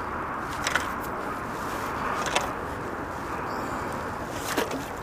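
A hooked carp being brought into a landing net in shallow water: three short, sharp splashes, about a second in, midway and near the end, over a steady background noise.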